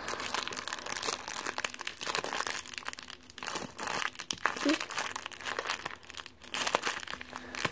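Tissue paper crinkling and rustling in irregular crackles as it is unwrapped by hand from a small plastic toy.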